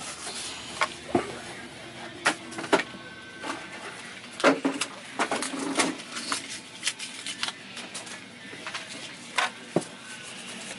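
Irregular clicks and knocks of parts being handled while working on a vacuum power nozzle's brush roller, with a busier run of knocks about halfway through.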